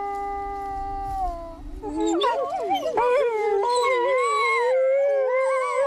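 Iberian wolves howling: one long, steady howl that dips slightly in pitch and ends about a second and a half in, then several wolves howling together in overlapping, wavering howls.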